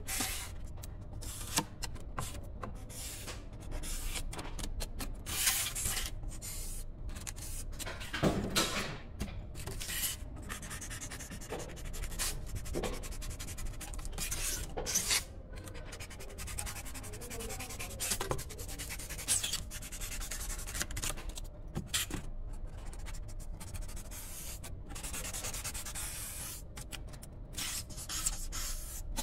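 Snap-off utility knife blade cutting through expanded polystyrene (EPS) foam, making a run of irregular scraping strokes of varying length with short pauses between them.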